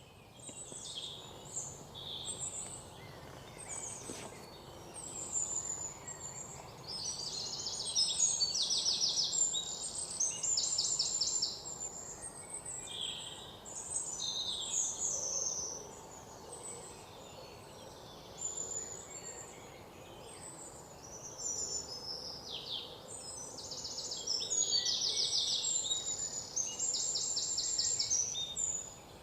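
Several birds chirping and calling, with repeated fast, high trills, over a faint steady background hiss.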